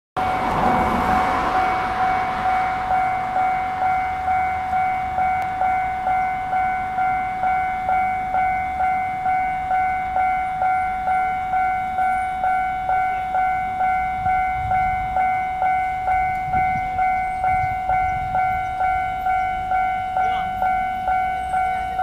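Railway level-crossing warning bell ringing with a steady repeated strike, just under two a second, while the crossing lights flash and the barriers are down: the signal that a train is approaching.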